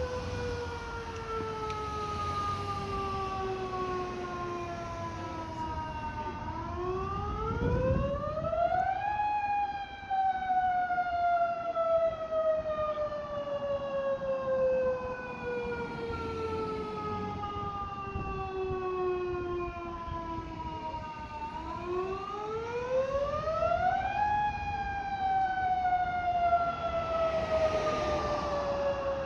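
Fire siren wailing slowly. Its pitch climbs steeply twice, about a fifth of the way in and again near the end, and each time it then sinks slowly for many seconds, the way a siren winds up and coasts down.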